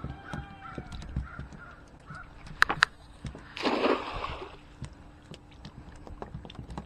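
A crow caws once, a harsh call about three and a half seconds in. Two sharp knocks come just before it, over faint handling sounds as the cast net's hand line is pulled in.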